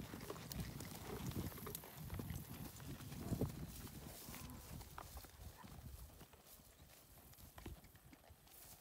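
Horses walking through dry grass and sagebrush: irregular hoof footfalls, louder in the first half and fading after about five seconds.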